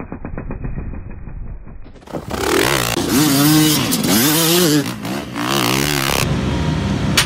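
Dirt bike engines revving hard through loose sandy turns, the pitch climbing and falling as the throttle is worked. The sound is muffled with a fast even pulse for about the first two seconds, then changes abruptly to a fuller, louder revving, with another abrupt change near the end.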